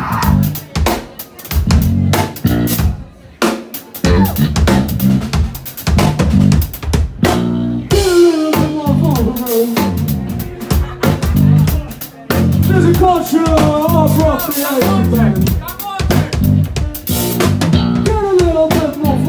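Rock band playing live: a drum kit with hard hits broken by short stops, then from about eight seconds in a bending, wavering lead line over the drums.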